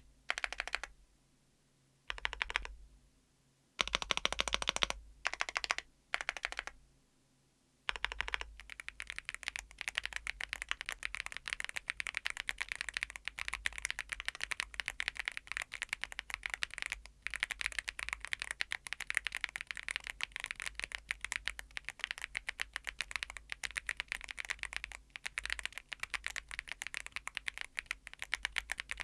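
Keys on a YUNZII AL98 full-aluminium mechanical keyboard with MILK V2 switches. For the first eight seconds, the long stabilized keys are pressed in short bursts of rapid presses with pauses between them. About eight seconds in, steady fast typing begins and runs on.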